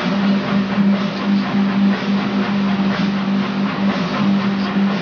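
Knifemaker's belt grinder running with a steady, slightly pulsing hum. A knife handle is being sanded against its small-wheel attachment, adding a steady hiss.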